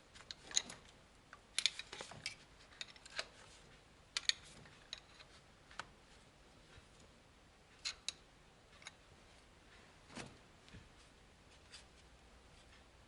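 Faint, irregular metallic clicks and clinks of a wrench working the locknut and adjusting screw on a rocker arm, setting the valve clearance on a VAZ-2101 engine. The clicks are thickest in the first half and grow sparse after.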